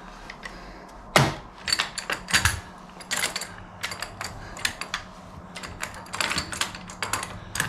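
Hand tools clicking and clattering on a hydraulic quick-connect coupler: a sharp metallic knock about a second in, then a run of irregular short clicks.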